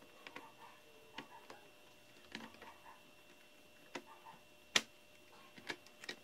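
Irregular light clicks and taps of a hard drive in its metal caddy being fitted into the plastic drive bay of an HP Compaq Presario CQ61 laptop, about eight in all. The sharpest click comes about three-quarters of the way through.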